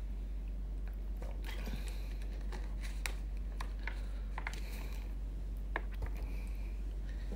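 Plastic water bottle being handled and capped: scattered small clicks and crinkles of the thin plastic and cap, over a steady low hum.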